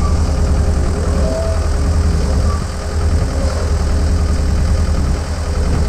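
An engine idling steadily close by, a deep low throb that changes little.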